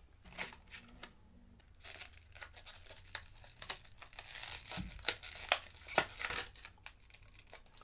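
A new SSD's retail packaging being opened by hand: quiet tearing and crinkling with scattered small clicks.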